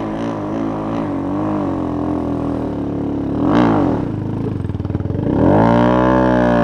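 Small 125cc single-cylinder Honda minibike engine running and revving. There is a quick blip about three and a half seconds in, then a longer rev that climbs, holds and drops away near the end.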